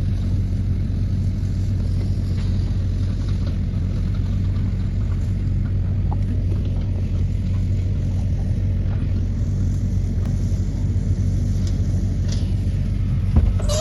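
Pickup truck engine running with a steady low rumble, with one brief knock near the end.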